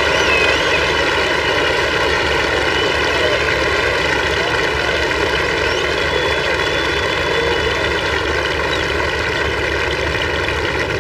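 Golf gallery cheering and applauding in one steady, sustained roar, with a few voices calling out, acclaiming a shot played close to the hole.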